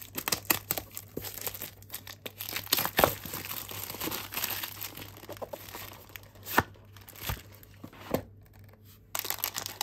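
Clear plastic shrink wrap being torn and crumpled off a small cardboard box: a continuous crinkling crackle with a few sharper snaps.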